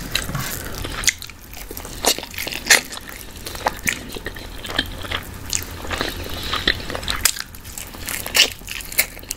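Close-miked wet eating sounds from barbecue-sauced chicken drumsticks: chewing, sticky lip smacks and clicks, with a bite into the drumstick meat near the end.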